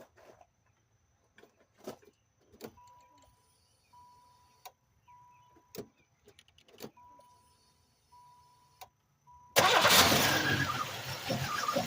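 A few clicks and a repeating electronic beep, then the 1996 Chevrolet Lumina's V6 engine starts up suddenly about nine and a half seconds in and keeps running.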